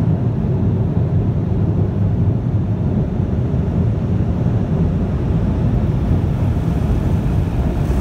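Car wash air dryer blowers running, a steady low rush of air heard from inside the car as it blows the rinse water off the glass.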